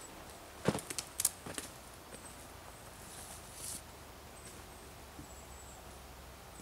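A few footsteps on the forest floor, sharp snaps and crackles of twigs and debris underfoot, bunched together about a second in; then only faint forest ambience.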